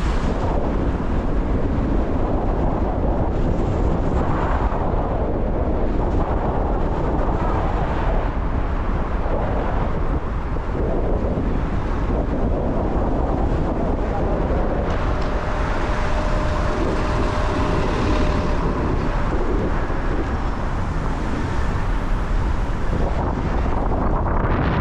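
Steady city street noise of traffic in a rainstorm, with wind buffeting the microphone in a constant low rumble.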